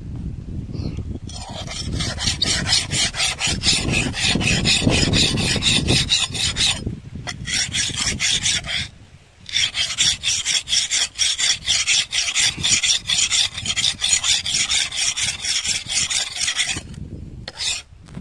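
Steel blade of a curved palm-tapping sickle being rubbed rapidly back and forth over a sand-dusted sharpening surface to hone its edge. The gritty scraping strokes come in quick succession, with two short breaks about seven and nine seconds in.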